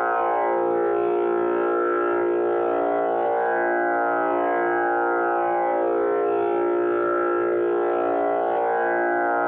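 Tanpura drone tuned to A#, sounding steadily without a break, its many overtones swelling and shifting slowly over the fixed low pitch.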